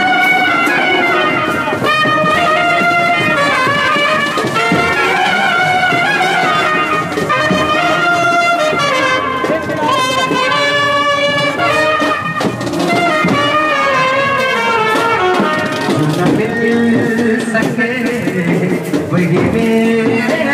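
Indian brass band music, with a trumpet playing a melody that moves up and down in steps.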